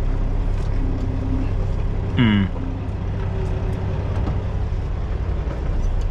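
Steady low rumble of an idling engine, with a brief falling tone about two seconds in.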